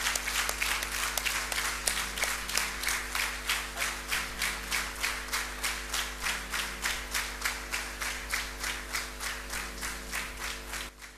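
Audience clapping a standing ovation in a steady, even rhythm, slowly dying away and stopping near the end.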